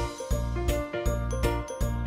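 Children's background music with a steady beat and pitched melody notes.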